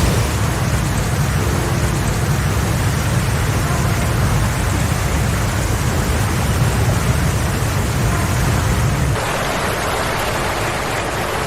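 Steady noise of a heavy rainstorm, with a deep rumble under it. About nine seconds in the rumble drops away, leaving a lighter hiss of rain.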